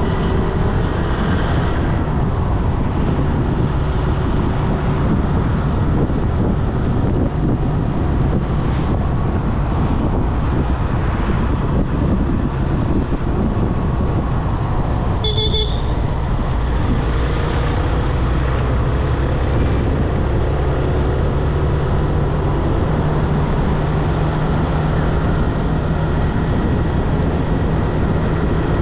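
Steady road and traffic noise of a vehicle driving, with a low engine hum throughout and a brief horn toot about halfway through.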